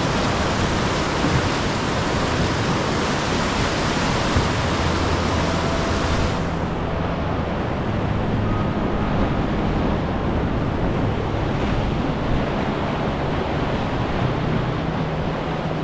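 Whitewater rapids rushing loudly and steadily around the boat. About six seconds in, the sound turns duller as its highest hiss drops away.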